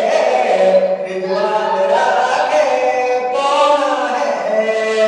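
A man singing a Mewati folk song into a microphone in long, held, melismatic phrases, with no instruments heard.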